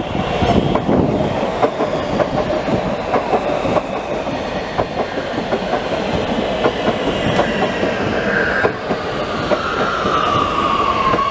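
Oslo Metro train running past at close range, its wheels clacking repeatedly over rail joints and points. A high whine comes in near the end and slides down in pitch before holding steady.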